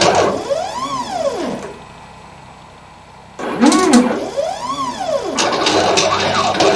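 Stepper motors of a CNC lathe driving a ground engraving pin along the character toolpath. Twice, a motor whine rises and then falls in pitch as the axes speed up and slow down, with a quieter pause of about two seconds between the two. A busier, rasping run of machine noise follows near the end.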